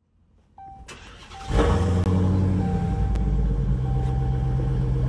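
Dodge SRT Hellcat's supercharged 6.2-litre Hemi V8 starting up. It cranks briefly, catches about a second and a half in with a loud burst, then settles into a steady deep idle.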